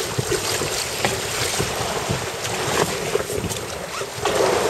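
Wind buffeting the microphone over water splashing and sloshing against a boat's hull, with irregular knocks and splashes.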